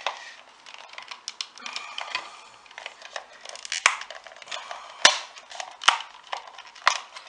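Plastic case of a cheap FK8250 digital multimeter crunching and cracking as it is levered apart, with a rapid run of sharp cracks and clicks. The loudest snaps come about four, five, six and seven seconds in. The case is straining because it is still held shut by screws.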